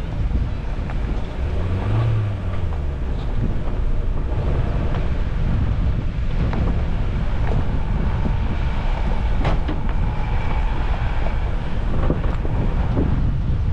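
Suzuki Jimny driving off-road: a steady low engine and road rumble with scattered knocks and rattles, and wind buffeting the microphone. About two seconds in, the engine revs rise and fall.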